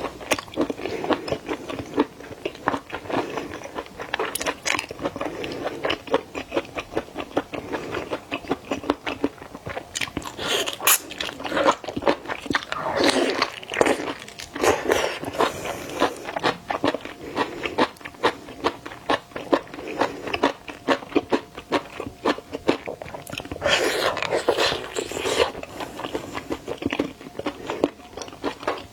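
Close-miked chewing and biting of seafood, likely shrimp: a dense, continuous run of crunchy, wet mouth clicks. Louder bouts of crunching come about halfway through and again near the end.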